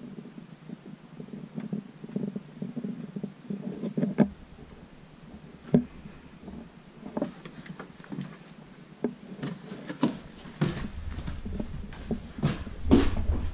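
Scattered knocks, clicks and rustles of someone moving and stepping among junk and insulation, with sharper knocks about four and six seconds in. A low steady rumble comes in near the end.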